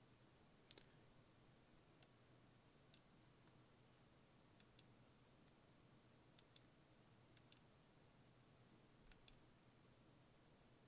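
Computer mouse clicking faintly, about ten sharp clicks, several in quick pairs, against near silence.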